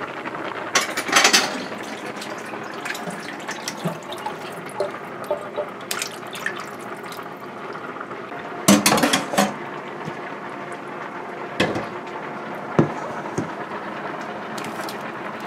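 Tap water running into a stainless steel bowl as raw chicken pieces are washed by hand in a kitchen sink, with several sharp clatters of the bowl and dishes, the loudest about nine seconds in.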